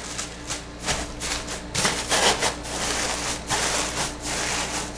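Crinkle-cut kraft paper shred and tissue paper rustling and crackling in irregular bursts as hands press the shred down and tuck it around items in a shipping box.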